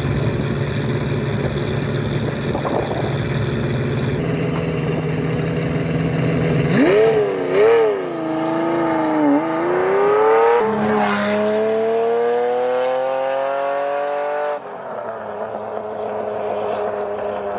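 Ferrari Testarossa's flat-12 engine running steadily, then revved up and down a few times about seven seconds in, then pulling away with its pitch rising steadily. A few seconds before the end the sound cuts abruptly to a steadier, lower engine note.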